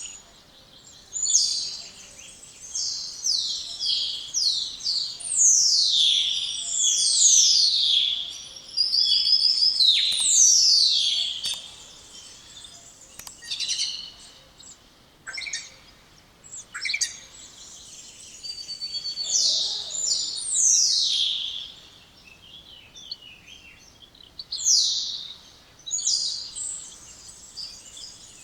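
Spotless starling singing: a string of loud whistles that slide steeply down in pitch, mixed with short chirps and a quick trill, in bursts with short pauses between them.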